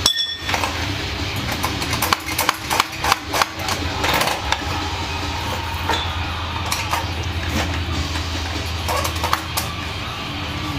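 Rover 1.8 K-series VVC engine idling steadily, with a series of sharp knocks over it, closely spaced about two to three and a half seconds in and a few more scattered later.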